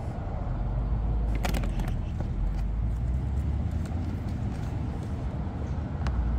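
Steady low outdoor rumble, with a few light clicks of hand tools being handled about a second and a half in.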